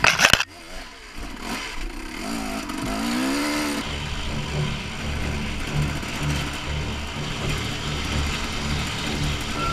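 Husaberg TE 300 two-stroke dirt bike engine revving up and down on a trail ride, with a brief loud clatter at the very start. About four seconds in, the sound cuts to steadier, lower-pitched running at part throttle.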